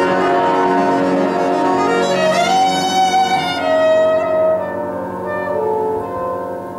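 Live band playing the slow instrumental close of a ballad, with held melody notes over keyboard chords that thin out and get quieter over the last two seconds.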